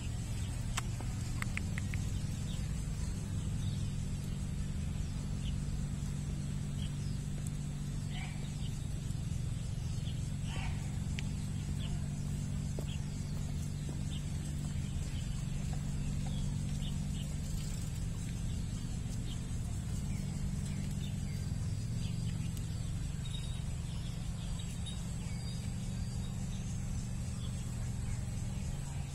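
Outdoor park ambience: a steady low hum with a few faint, brief bird chirps.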